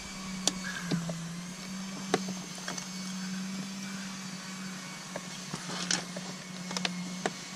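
Scattered small clicks and taps of plastic tubing being pushed and twisted into the push-in fittings of a CO2 crossover manifold, over a steady low hum.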